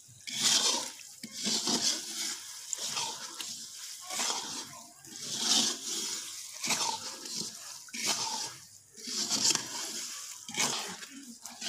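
Metal slotted spoon stirring and scraping round the bottom of a large iron karahi of boiling sugar syrup and ghee, in sweeping strokes about once a second. The stirring is kept up so the syrup does not stick to the bottom.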